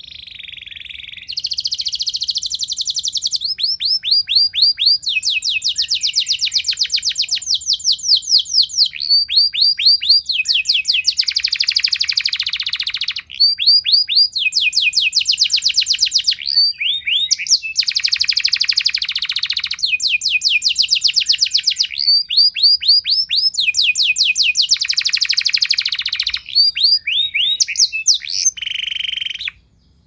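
Domestic canary singing a long, loud song almost without a break: runs of fast repeated sweeping notes alternate with buzzy rolling trills, and the song cuts off suddenly near the end.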